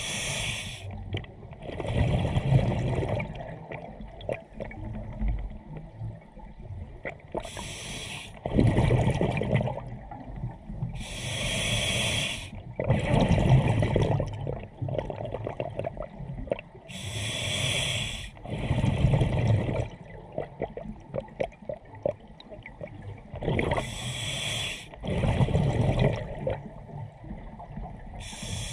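Scuba diver breathing through a regulator underwater, five slow breaths: a short hiss on each inhale, then a longer gurgling rush of exhaled bubbles.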